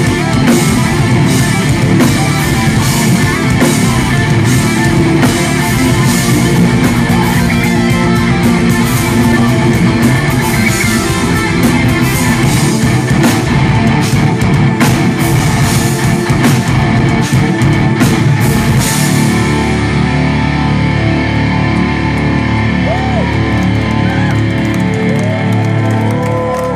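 Progressive metal band playing live: electric guitars, bass guitar and a Pearl drum kit. About nineteen seconds in, the drums stop and the guitars and bass ring on in a held chord.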